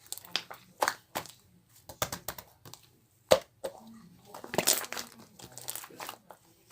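Marbling slime being squished and stretched by hand, giving irregular sticky clicks and crackling pops.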